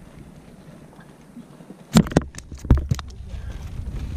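A quick cluster of sharp knocks and slaps about halfway through, the loudest two about a second apart, followed by a low steady rumble.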